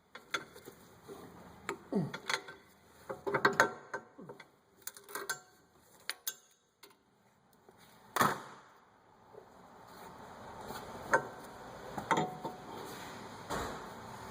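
Intermittent metal clicks and clanks from tools and brake parts being handled, with a louder clank about eight seconds in. A faint steady hiss builds over the second half.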